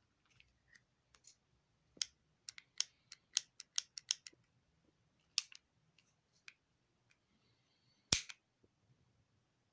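Metal-and-plastic clicks and clacks of a Hi-Capa gas blowback airsoft pistol being handled and worked, a quick run of them in the middle, then one louder, sharper snap near the end.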